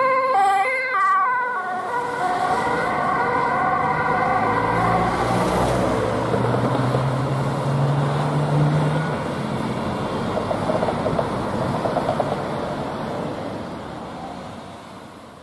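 Ambulance siren quickly alternating between two pitches, stopping about a second and a half in. It is followed by road traffic and a vehicle engine running, fading out near the end.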